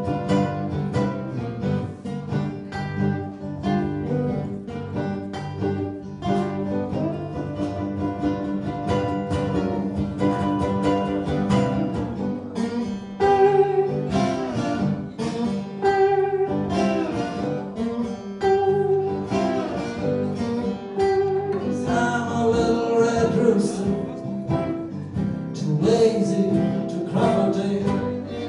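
Two guitars, one of them a tenor guitar, playing a slow blues instrumental: picked chords under a single-note lead line that repeats a short phrase of held notes.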